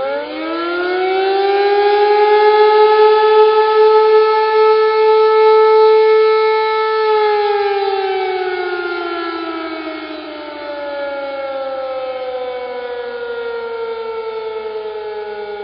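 Air-raid siren sound effect: the wail winds up quickly in pitch, holds a steady tone for about six seconds, then slowly winds down, falling in pitch for the rest of the time.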